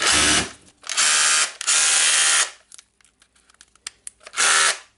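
Makita DHR243 brushless cordless rotary hammer run in four short trigger bursts, hammering in hammer mode. It works again after the mode-changer pin was fixed.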